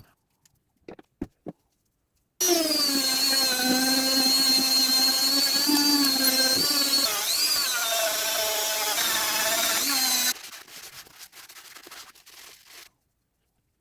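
Electric power tool, like a drill, running under load for about eight seconds with a steady whine that sags and wobbles in pitch, after a few light clicks. It then stops, giving way to quieter scraping and rubbing.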